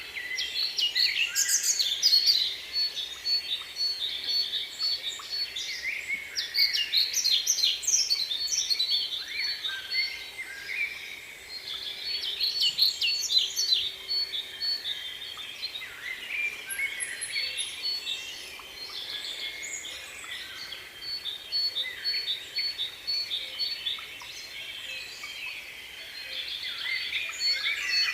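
Many small birds chirping and twittering together in a busy chorus, with one high note repeated at an even pace through much of it.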